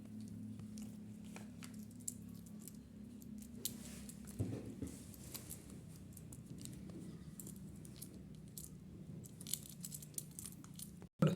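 Small hard plastic pieces clicking and tapping as they are handled, over a steady low hum. A sharper knock comes near the end.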